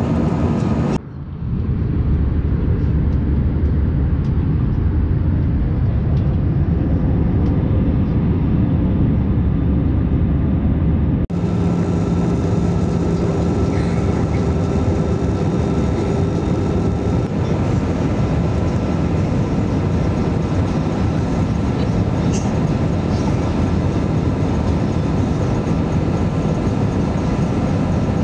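Steady cabin roar inside an Airbus A320-214 in flight: its CFM56-5B engines and the airflow past the fuselage, heaviest in the low range. There is a brief dip about a second in and an abrupt change in tone about eleven seconds in.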